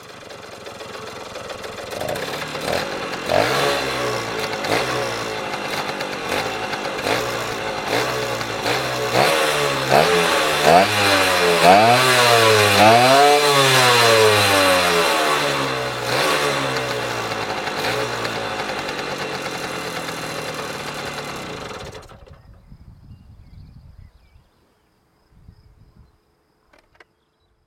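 Flandria Mistral 50cc two-stroke moped engine being revved over and over, its pitch rising and falling in quick blips about once a second, with the highest rev near the middle. The sound drops away sharply about three quarters of the way through.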